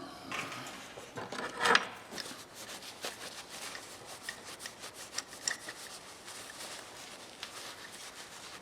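Cloth rubbing briskly over a buffed metal hand tool, wiping off polishing compound in quick scratchy strokes, with a louder handling knock about two seconds in.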